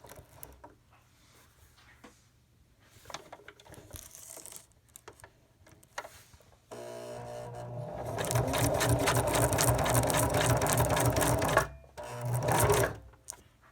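Domestic sewing machine stitching through a patch and hook-side Velcro. Its motor hums up, then runs for about four seconds with rapid, even needle strokes. It stops, runs again briefly, and stops.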